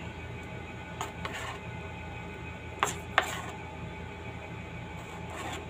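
Diced tomato being scraped by hand across a plastic cutting board and dropped into a bowl: a few light scrapes, with two sharp clicks about three seconds in, over a steady low background hum.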